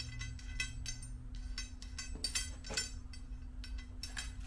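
Steel nut and washer being spun by hand down a 3/4-inch threaded rod: a run of irregular light metallic clicks, each ringing briefly.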